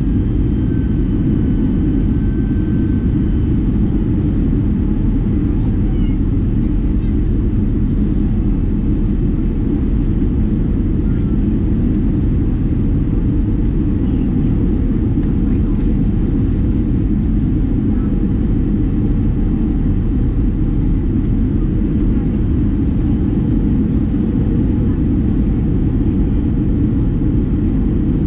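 Steady low cabin rumble of an Airbus A320-214 descending on final approach, its CFM56 turbofan engine and the airflow heard from inside the cabin at a window seat over the wing.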